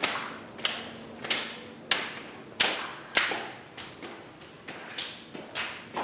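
A series of sharp knocks, about one and a half a second and slightly irregular, each trailing off with an echo, over a faint steady hum.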